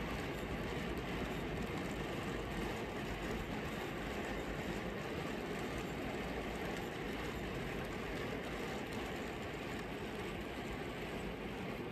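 A long train of model empty coal wagons rolling past on model railway track: a steady rumble with faint clicking from the wheels.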